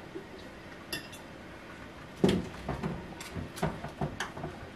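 Hard ceramic and plastic items clinking and knocking as they are handled and set down: a light clink about a second in, then a quick run of knocks and clatters from about two seconds on, the first one the loudest.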